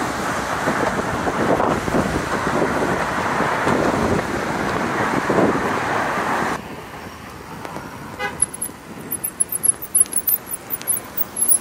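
Steady traffic noise of cars passing on a multi-lane road, with wind on the microphone, for about six and a half seconds. After that it drops to a quieter street scene with a short vehicle horn toot about eight seconds in, and high chirping from then on.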